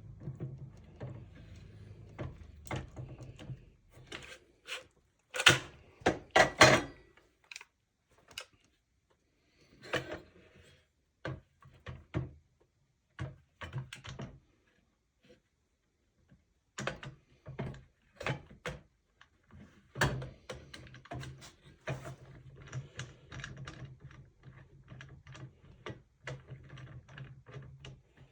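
A series of irregular clicks and knocks from tools and metal parts being handled at a machine setup, loudest in a cluster about six seconds in. A low steady machine hum sounds underneath at the start and again from about two-thirds of the way through.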